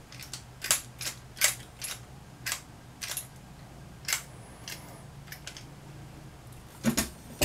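Irregular light metallic clicks and taps, about a dozen, as the throttle and accelerator pump lever linkage of an Autolite 1100 one-barrel carburetor is worked by hand.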